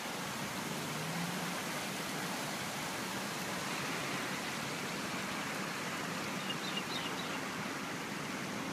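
Steady rushing outdoor background noise with no distinct events, and a few faint high chirps about seven seconds in.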